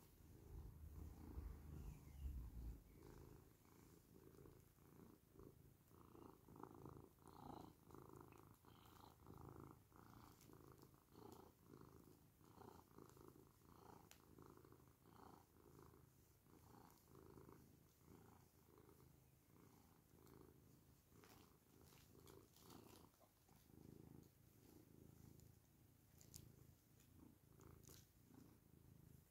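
Domestic cat purring softly in an even, pulsing rhythm while its head and face are stroked, a sign of contentment. A brief low rumble comes near the start.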